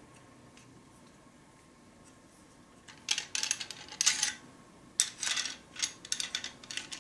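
Metal parts of a PanaVise model 315 circuit board holder clicking and rattling as they are handled and refitted: quiet for the first three seconds, then quick clusters of clinks and rattles.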